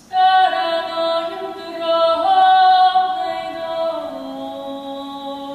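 A woman's voice singing a folk melody in long held notes. It enters suddenly and drops to a lower note about four seconds in.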